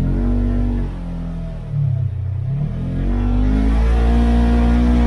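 Side-by-side UTV engine running while driving over sand dunes on paddle tyres. The revs rise and fall, then hold steady under load from about three seconds in.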